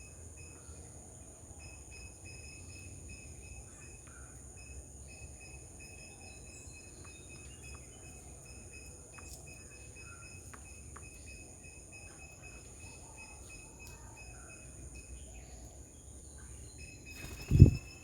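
Outdoor ambience of insects droning steadily on several high, even tones, with scattered faint bird chirps and ticks. Near the end a single loud, short low thump, like a knock or bump on the microphone.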